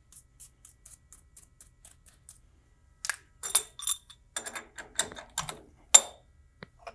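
Metal clanks and clinks of a milling-machine vise being opened and a machined part lifted out. A quick run of light ticks, about four a second, comes first. About three seconds in, sharp ringing metal knocks start, the loudest about halfway through and again about a second before the end.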